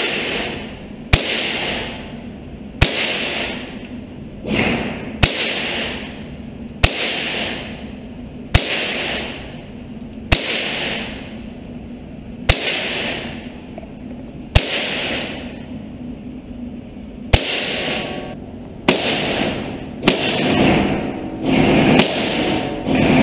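A .22 rifle fired as about a dozen single shots, one every one to two and a half seconds, each sharp crack followed by a ringing echo off the walls of an indoor range.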